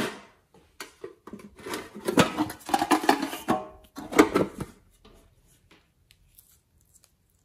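Plastic blister packaging of a clay piping bag handled close to the microphone: crinkling and clicking, loudest in the middle, then a few faint ticks near the end.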